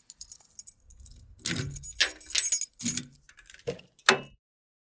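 Small metal objects clinking and rattling as they are handled: a run of sharp clicks and jingles, ending with a loud click about four seconds in.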